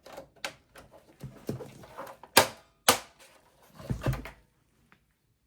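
A plastic part being fitted back into a Dell Optiplex small form factor PC case: a series of clicks and knocks, the two loudest sharp snaps about half a second apart some two and a half seconds in, then a duller knock around four seconds.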